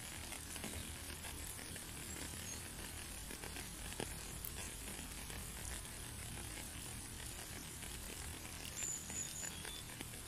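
Steady rain falling: an even hiss with scattered ticks of drops and a low steady rumble underneath, and one sharper tick about four seconds in.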